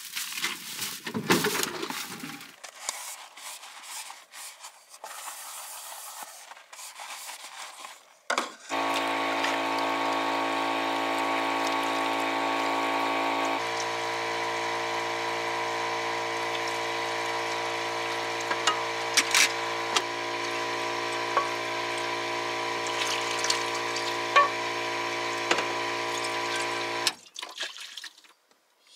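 Washing up at a small camper-van sink: a steady droning hum with running water sets in after some dish clatter, shifts pitch once, and stops abruptly near the end, with a few sharp clinks of dishes along the way.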